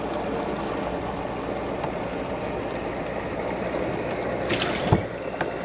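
Steady low background rumble on a small fishing boat, with a short hiss and then a single sharp thump near the end.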